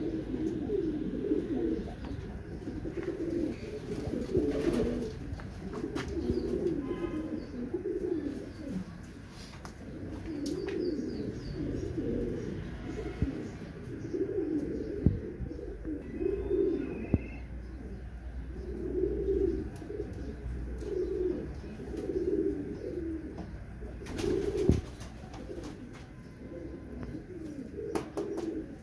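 Feather-footed domestic pigeons cooing, a steady series of low coos one after another.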